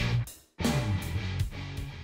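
Intro music with guitar. It cuts out briefly about half a second in, comes back, and fades away near the end.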